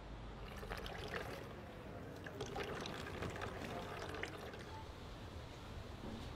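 Tap water running and splashing over a head as shampoo lather is rinsed out of hair.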